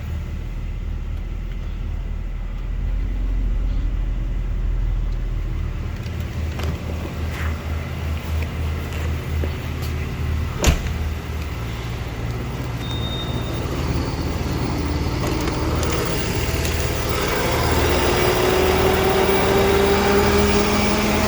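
BMW E46 325i straight-six idling, with a single sharp click about halfway through. Then, about two-thirds of the way in, the front auxiliary fan spins up with the A/C on: a rising whir and whine that climbs slowly in pitch and grows louder. This is the very loud noise heard only with the A/C on, which the owner suspects is the auxiliary fan.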